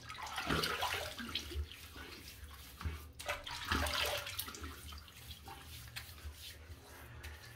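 Hot water splashing and trickling in a bathroom basin as it is scooped onto the face to warm the skin before a shave; loudest in the first second or so, then quieter.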